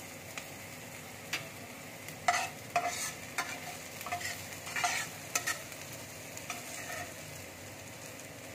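Chopped onions and green chillies sizzling in hot oil in a kadai, while a steel spatula scrapes and knocks against the pan several times as they are stirred.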